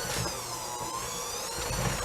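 KitchenAid electric hand mixer running with its beaters in a very thick, heavy cookie dough; the motor whine wavers up and down in pitch as it labours under the load.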